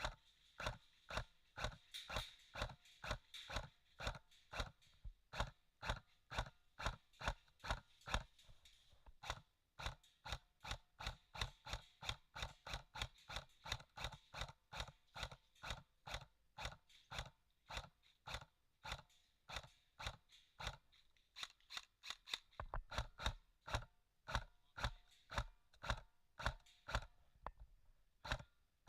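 Footsteps crunching over dry ground at a steady brisk pace, about three steps a second.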